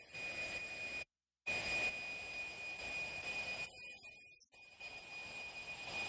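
A steady high-pitched tone over a bed of hiss. It cuts out completely for a moment a little after a second in, and thins briefly around four seconds.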